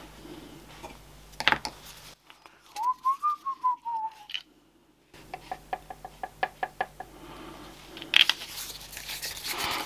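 A person whistling a short tune of quick notes that climb and then fall back, with a few light clicks from handling small parts on the work mat.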